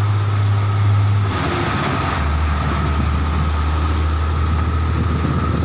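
Heavy diesel trucks running past close by on a wet dirt haul road: a dump truck, then a crane-equipped flatbed truck. The low engine note drops about two seconds in, and a short hiss comes with the change.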